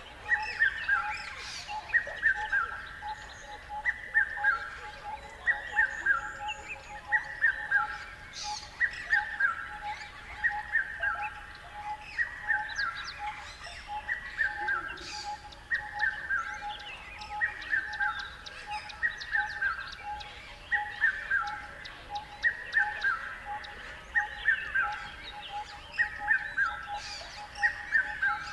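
Songbirds chirping: one bird repeats a short falling run of notes about every second and a half, with scattered higher chirps from other birds. A fast, steady pulsing note runs underneath.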